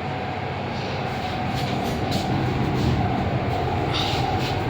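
Lift car travelling up its shaft: a steady low rumble with a constant hum, and a few light rattles about two seconds in and near the end.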